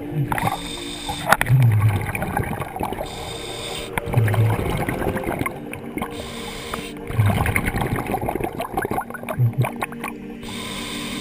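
Scuba regulator breathing heard underwater. A hiss on each inhale alternates with a burst of bubbling as the exhaled air leaves the exhaust valve, about one breath every three seconds.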